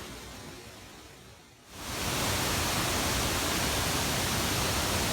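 Waterfall swollen after a typhoon: a steady, full rush of falling water that comes in suddenly about two seconds in and holds even.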